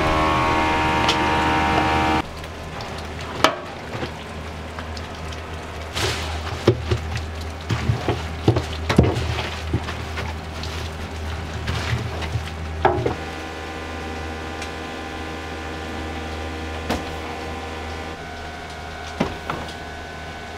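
Kitchen work sounds: a steady, many-toned hum at first, then a long wooden paddle stirring cooked spaghetti in a large aluminium stockpot, with irregular knocks and clacks against the pot for several seconds. The steady hum returns, quieter, near the end.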